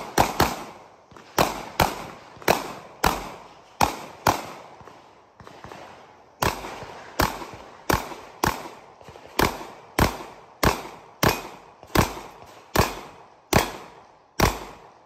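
A TISAS MAC 9 DS 9mm pistol fires a rapid string of shots, about two a second, with a pause of about two seconds near the middle before the string resumes.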